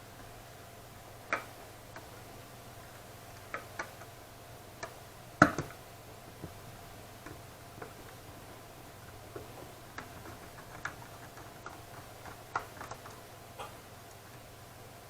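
Irregular light clicks and taps of small parts and tools being handled while a graphics card is taken apart for new thermal paste, with one sharper knock about five seconds in.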